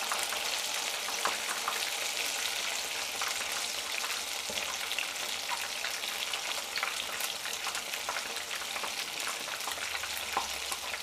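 Cornflour-coated chicken wings frying in hot oil in a pan: a steady sizzle full of small crackles and pops, with one louder click near the end. A thin metal spoon moves through the oil as the pieces, cooked on one side, are turned over.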